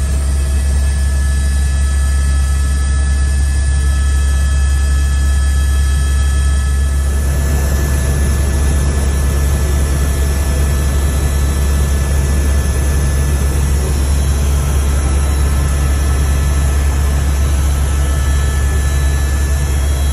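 Cabin noise of an AS350 B3e helicopter in flight: a deep, steady rotor drone with steady high whines from its Arriel turboshaft engine and gearbox. About seven seconds in, the sound turns brighter, with more hiss.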